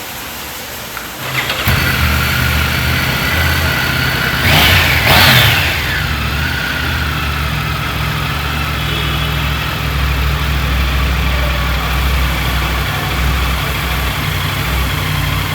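Triumph Tiger 900 GT Pro's three-cylinder engine cranked on the starter and catching about a second in. It is revved twice a few seconds later, then settles to a steady idle.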